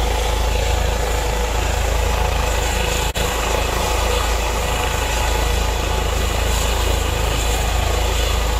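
Trauma helicopter running on the ground just after landing, its turbine and rotor going steadily, with the rotor downwash buffeting the microphone as a deep rumble. The sound drops out for a split second about three seconds in.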